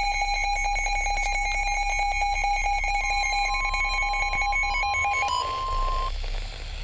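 NOAA Weather Radio warning alert: a rapidly pulsing electronic alarm that rings like a telephone bell. A steady 1050 Hz warning tone comes in about three seconds in. The alarm stops a little after five seconds and the tone about a second later, leaving radio hiss.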